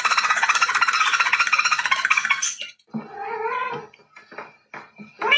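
A rapid, dense rattling chatter for the first two and a half seconds, then a domestic cat meowing once about three seconds in, followed by a few soft knocks.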